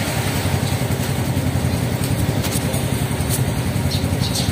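Small motorcycle engine idling steadily, with the steady hiss of rain behind it.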